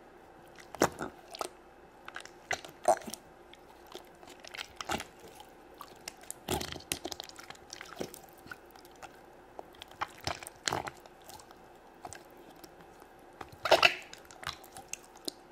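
Green slime squeezed and poked with fingers in a small plastic toy-toilet cup: irregular short wet squelches, with a longer, louder squelch near the end.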